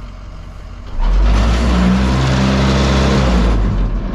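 Excavator's diesel engine idling, then revving up sharply about a second in and holding at high revs for a couple of seconds under hydraulic load before easing back near the end.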